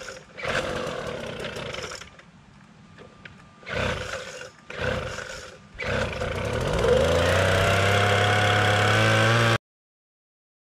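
An engine starting: a few short noisy bursts, then the engine catches about six seconds in, rises in pitch and settles at a steady high speed. The sound cuts off abruptly near the end.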